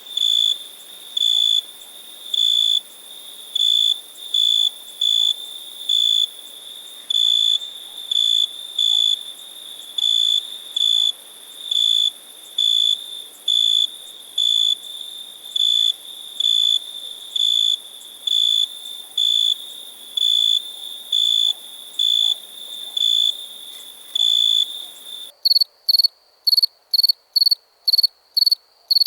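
A cricket chirping in a steady rhythm, about one and a half high-pitched chirps a second over a faint hiss. Near the end it changes abruptly to a higher, faster chirping, about two and a half chirps a second.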